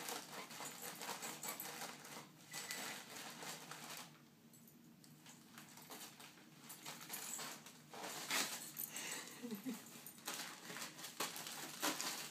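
A dog tearing and nosing at a gift-wrapped squeaky toy: the wrapping paper crinkles and rustles in repeated bursts, with a quieter pause a few seconds in before the rustling picks up again.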